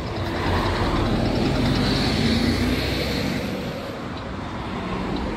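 A car driving past, its road noise swelling to a peak about two seconds in and then fading away.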